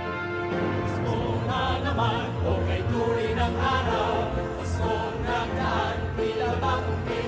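Male vocal ensemble singing in choral harmony over musical accompaniment, from a live concert recording.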